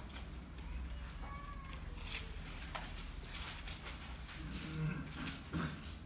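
Bible pages being leafed through, with a few short paper rustles and a brief low hum about five seconds in.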